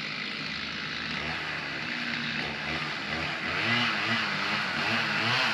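An engine running, its pitch rising and falling again and again in the second half.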